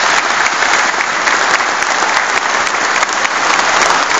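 Large audience applauding: a dense, steady round of clapping that follows the end of a speech.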